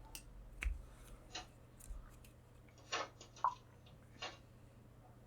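Faint, irregular clicks and taps, a handful of them spread through the few seconds, over a steady low hum.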